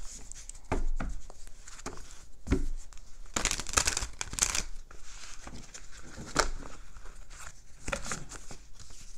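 A deck of tarot cards being shuffled by hand: a run of short, dry card slaps and rustles, with a longer flurry of cards falling between the hands about three and a half seconds in.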